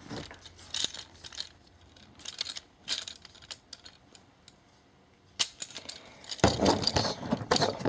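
Hard plastic parts of a Transformers Deluxe Class Ratchet action figure clicking and rattling as the figure is handled and its joints are turned. A few scattered clicks come first, then denser clattering with rubbing from a hand right against the microphone over the last second and a half.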